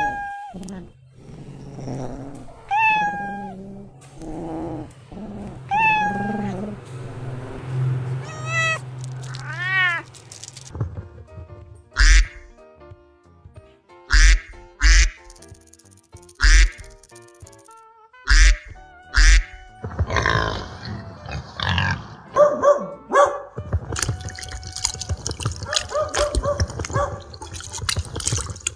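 A cat meowing about four times, a few seconds apart, then background music.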